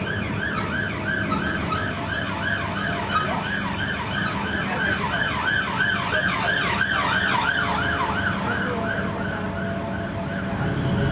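Volvo B10M bus giving a rhythmic, wavering screech, about three squeals a second, over its engine running underneath; the screech dies away near the end. It is the noise of a badly worn, unhealthy bus.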